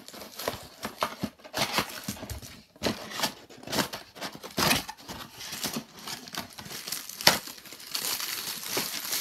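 Cardboard toy box being opened by hand: flaps and packaging rustling and crinkling in irregular handling noises and clicks, with one sharp snap about seven seconds in.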